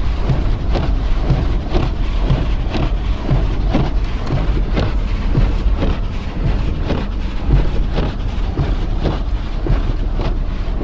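Car driving on a wet, icy road, heard from inside the cabin: a steady low rumble of engine and tyres, with irregular ticks and knocks throughout.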